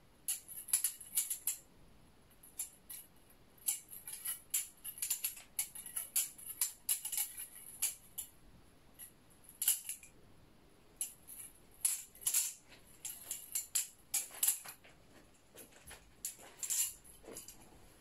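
Kershaw Lucha butterfly knife clicking and clacking in quick clusters as its handles and blade swing around during twirls and open-close flips, with short pauses between runs.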